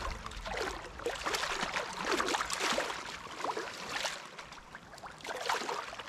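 Small waves lapping and sloshing in shallow lake water, an irregular run of little splashes.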